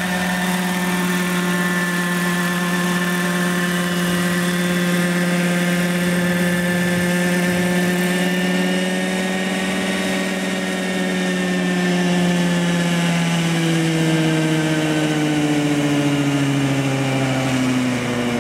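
Radio-controlled scale model helicopter running on the ground after landing: a steady pitched motor-and-rotor whine. From about two-thirds of the way through, its pitch falls steadily as it spools down.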